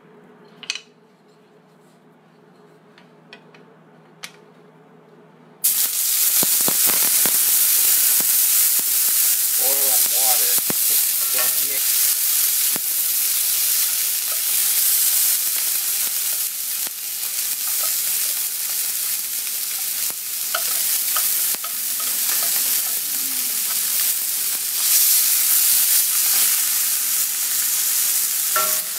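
A few light clicks, then about six seconds in a sudden loud sizzle as food hits canola oil heated to searing temperature in a cast iron skillet; the frying then runs on steadily.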